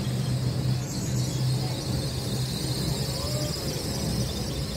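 Outdoor traffic ambience: a steady low engine hum with a faint high hiss above it.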